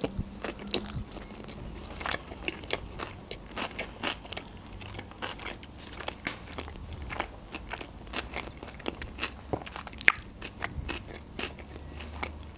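A person chewing a mouthful of sushi roll, lips closed, with many quick wet mouth clicks and smacks. One sharper click comes about ten seconds in.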